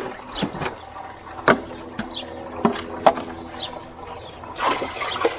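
Water being poured from a bucket into a hydroponic system's reservoir, with several sharp knocks of the container, some ringing briefly.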